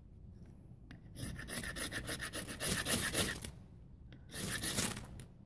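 A knife scraped down a ferrocerium rod held still against tinder, throwing sparks: a run of quick rasping strokes lasting about two and a half seconds, then one shorter scrape near the end.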